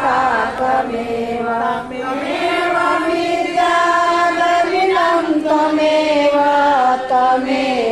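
Devotional chanting of a Sanskrit prayer, sung in a slow melody with long held notes.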